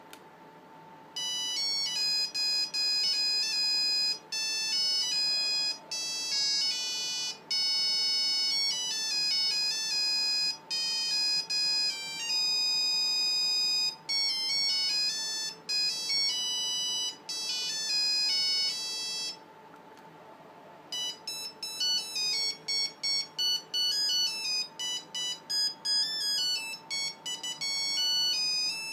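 Nokia 5510 mobile phone playing its built-in ringtones through its speaker: one electronic beeping melody, then after a brief pause about two-thirds of the way in, a second, faster tune of short notes.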